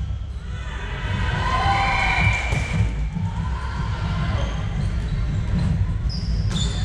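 Indoor volleyball play on a hardwood court in a large echoing hall: players calling out a second or two in, feet and shoe squeaks on the wooden floor, and a sharp knock near the end.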